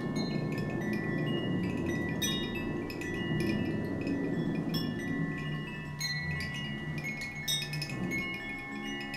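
Metal chimes struck and left to ring: clusters of high, overlapping ringing tones, a new cluster every second or so, with some tones held long. A low steady drone sits underneath.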